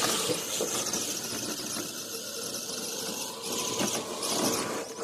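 Radio-controlled crawler trucks driving over the trail, their electric motors and geartrains giving a steady whine.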